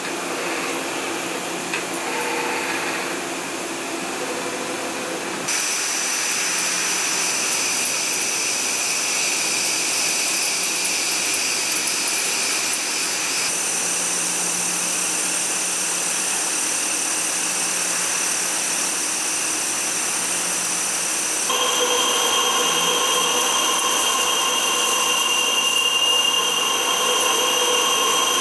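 CNC machine running with a steady high-pitched whine over cutting noise. The pitch and loudness step abruptly about five seconds in, again about eight seconds later, and again about two-thirds of the way through, as the machine changes speed or cut.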